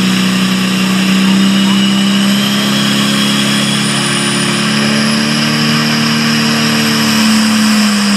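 Super farm class pulling tractor's turbocharged diesel engine running hard at high revs, its pitch creeping slightly higher in the second half, with a faint high whistle above it.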